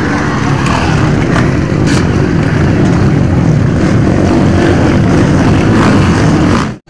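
Several small motocross dirt bikes racing past, their engines running hard in a loud, steady din.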